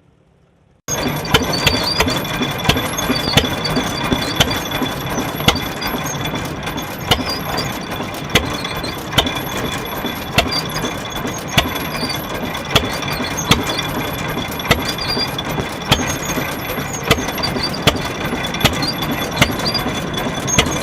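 An old engine runs with a sharp, regular knock a little over once a second, starting abruptly about a second in.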